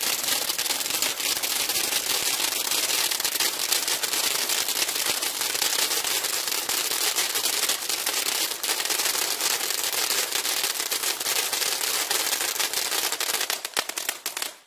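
Gold Eruption firework fountain spraying sparks: a steady hiss thick with dense crackling, which sputters and dies away near the end.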